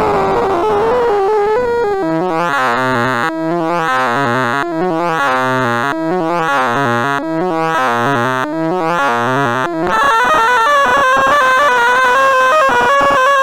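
Sound of Sorting sonification: rapid computer-synthesized beeps whose pitches follow the values being compared and moved as a sorting algorithm runs. From about two seconds in, a sweeping pitch pattern repeats about every second and a third. Near ten seconds in it changes to a higher, busier run of tones.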